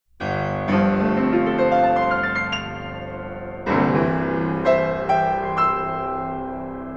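Solo piano playing a short phrase. A chord is struck, then single notes climb upward one after another. A second chord comes a little past halfway, a few higher notes follow, and the sound rings on and slowly fades.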